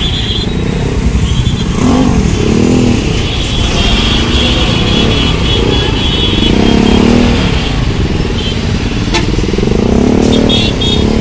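Many motorcycle and scooter engines running together in a packed crowd, with engines revved up and down several times.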